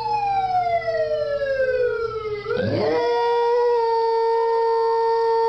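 A siren wailing in long, slowly gliding tones, with a dog howling along to it. A falling wail gives way about halfway in to a new rising howl that then holds steady.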